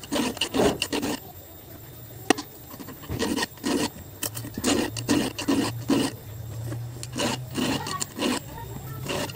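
Round chainsaw file being drawn across the cutters of a chainsaw chain by hand, short rasping strokes roughly two a second with a brief pause after the first second. This is a worn, dull chain being resharpened.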